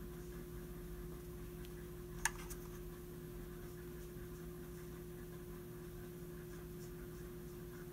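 Quiet room tone with a steady electrical hum, broken by a single sharp click a little over two seconds in.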